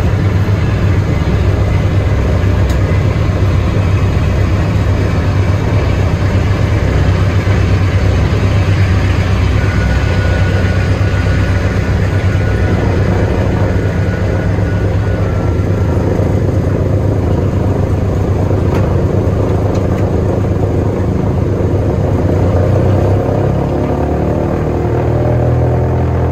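Wright R-1820 Cyclone nine-cylinder radial engines of a Boeing B-17G Flying Fortress running on the ground, a loud, steady, deep drone. Near the end the engine note shifts and rises slightly.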